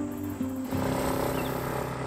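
Background music: sustained instrumental notes that change pitch twice in the first second.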